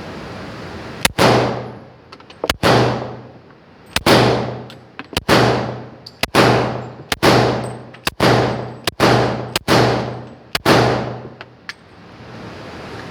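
Ten shots from a Glock 22 .40 S&W pistol, fired one at a time about a second apart, each trailing off in a ringing echo.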